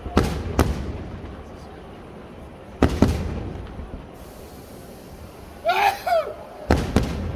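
Aerial firework shells bursting: three pairs of sharp bangs, each pair a fraction of a second apart and the pairs about three seconds apart, each bang trailing off in a short echo.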